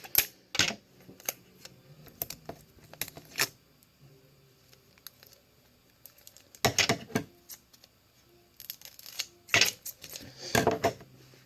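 Sticky tape being pulled and wrapped around a paper handle, with paper crinkling: short crackly bursts, loudest a little after halfway and again near the end.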